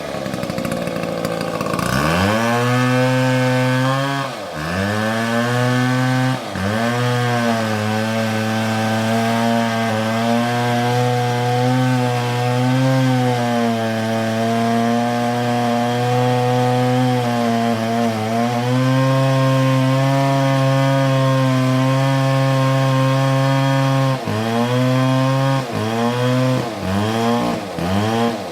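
Large two-stroke chainsaw running under load in a cut through a tree trunk, holding a steady engine note. The note dips and picks up again a few times, and it revs up and down quickly several times near the end.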